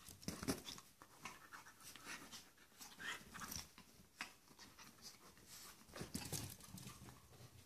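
A Chihuahua and a Portuguese Water Dog play-wrestling on a blanket-covered dog bed: soft panting and scuffling in a string of short, irregular noises, loudest near the start and about six seconds in.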